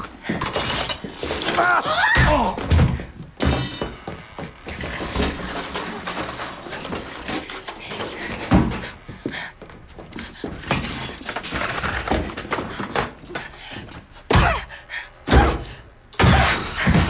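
A violent struggle: strained, choking vocal sounds near the start, then a series of heavy thuds and blows with something shattering. The hardest impacts come in the last few seconds.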